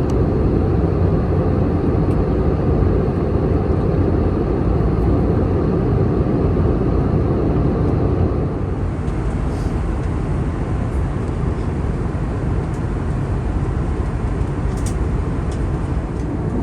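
Steady cabin noise of an Airbus A321neo airliner in flight: a constant deep rush of airflow and engine noise. It eases slightly about halfway through, with a few faint ticks.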